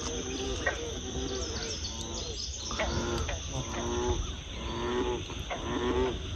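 Swamp frogs calling, a low pitched call repeated roughly every second, with birds chirping faintly over them.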